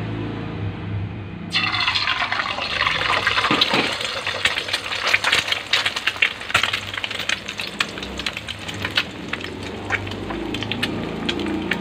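An egg sizzling as it hits hot oil in a stainless steel pan, starting suddenly about a second and a half in. It goes on as a steady sizzle with dense crackling and many sharp pops of spattering oil as the egg fries.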